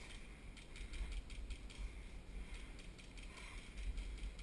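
Faint scattered light clicks and rustles of handling and movement as the player shifts position and raises an airsoft pistol.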